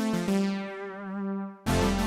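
Yamaha AN1x virtual-analog synthesizer playing a preset: a short phrase of keyboard-like notes ending in a held note with vibrato that dies away. About one and a half seconds in, a new, louder patch with deep bass starts.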